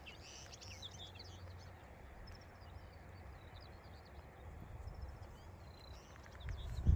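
A small bird singing a run of quick, high chirping notes, over wind rumbling on the microphone that gusts louder near the end.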